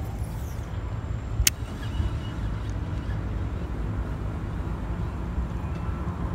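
Steady low outdoor rumble with one sharp click about a second and a half in.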